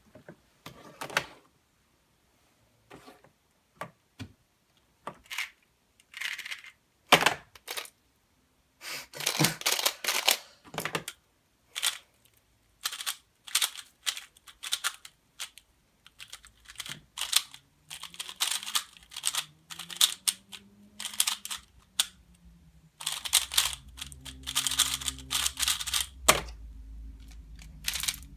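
Plastic speedcubing puzzles (a 2x2 cube, a 3x3 cube and a skewb) being turned fast, giving bursts of rapid clicking and clacking with short pauses between. Puzzles knock down on the wooden desk between solves. Near the middle a faint low hum starts, rising and falling in pitch, then goes on steadily under the clicks.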